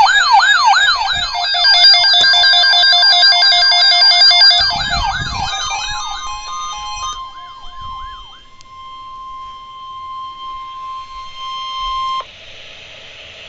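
Several electronic siren sounds layered together, fast repeating yelp sweeps at different pitches over steady alarm tones, fading out over the first eight seconds or so. Under them a steady single-pitch weather-radio alert tone holds on alone and cuts off sharply about twelve seconds in.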